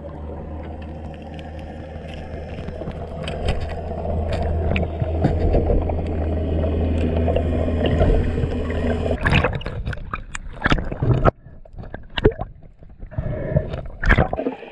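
Underwater sound picked up by a diving camera: a steady low drone of a boat motor carried through the water, with bubbling and gurgling. About nine seconds in the drone cuts off and sharp knocks and clicks take over.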